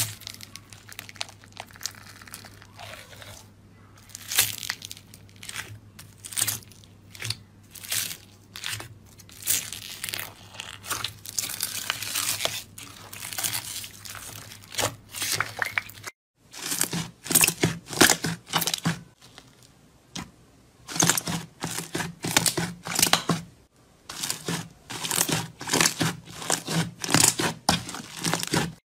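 Hands squeezing, stretching and poking slime, making irregular sticky crackling, popping and tearing noises in quick bursts. There is a brief silence about sixteen seconds in, after which the bursts resume, with a faint steady hum under them.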